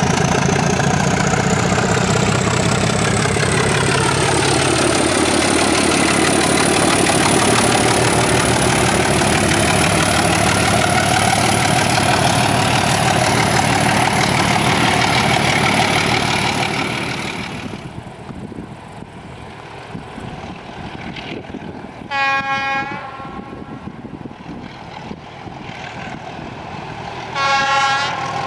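ČD class 751 diesel locomotive working hard as it pulls a passenger train away, its engine running loud with a rising whine, then fading out. Later come two short blasts of a locomotive horn, about five seconds apart.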